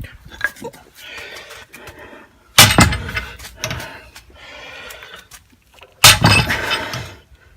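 Thor No. 3 split-head hammer striking the lathe's start/stop lever twice, about three and a half seconds apart, each blow loud and trailing off in a rattle, bending the lever for clearance.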